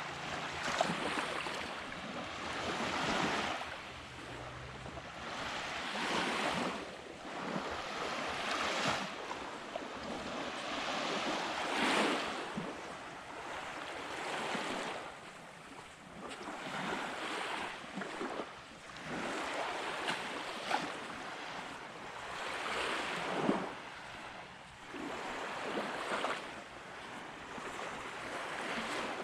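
Small waves breaking and washing up the beach, each a rush of surf that swells and fades about every two to three seconds.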